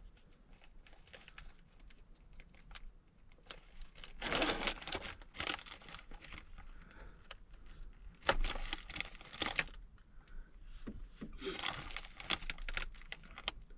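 Plastic deli-meat packaging crinkling in several bursts as slices are pulled out of it, with small clicks and taps between.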